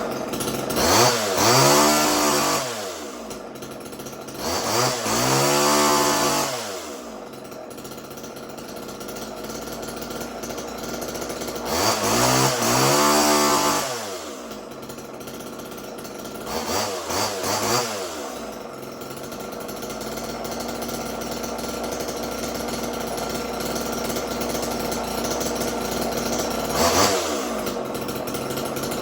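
Homelite XL two-stroke chainsaw idling just after its idle speed was turned down. It is blipped to high revs and let fall back about five times, with a short blip near the end.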